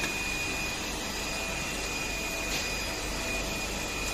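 A steady whirring hum with a thin high whine, as of a fan or motor running, with one faint click about two and a half seconds in.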